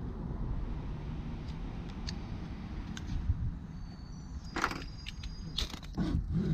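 Steady low rumble with a few light clicks and two short scraping rustles as a wire windshield cut-out tool is handled and set up. Near the end, the first rasping strokes of the wire being sawn back and forth through the windshield's urethane bead.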